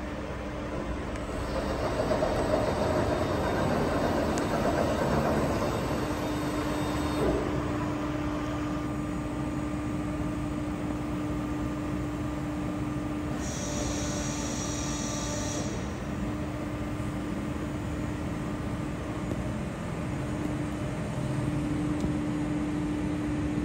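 Nicolas Correa L30/58 CNC bed milling machine running under power, its B and C axis milling head swivelling: a steady machine hum with a held low tone, and a higher whine in two stretches, one in the middle and one near the end.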